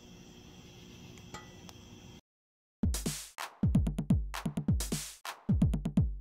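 Faint, steady chirring of crickets, cut off about two seconds in. After a moment of silence, electronic drum-machine music starts, with deep kick drums falling in pitch and hissy cymbal hits.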